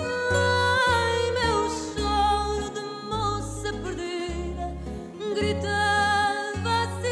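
Recorded fado song: a woman's voice sings long wavering notes over plucked guitar accompaniment, with low bass notes coming and going.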